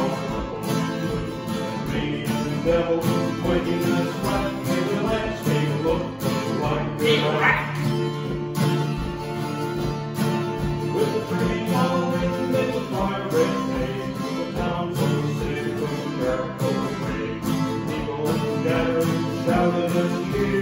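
Two acoustic guitars strumming a tune together.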